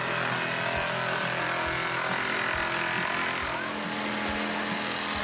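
Electric jigsaw running steadily as it cuts through a wooden board.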